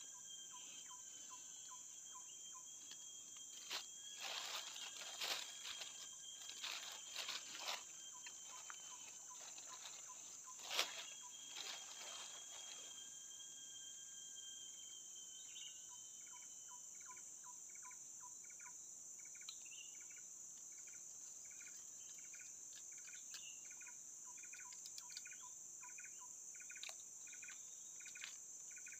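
Faint, steady high-pitched insect chorus of crickets or cicadas. About halfway through, a run of short chirps starts, repeating about twice a second. In the first half there are a few brief noisy bursts, the loudest about eleven seconds in.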